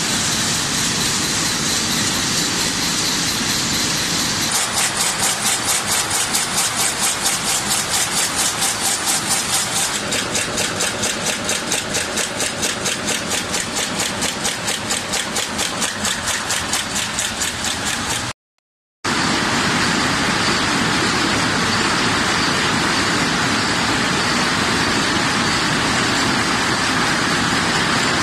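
Double-stroke cold heading press forming M5×25 screw blanks, running with a fast, even clatter of about four strokes a second, its rated 264 strokes a minute. About two-thirds of the way in, the sound cuts out for a moment and comes back as a steadier, denser machine din.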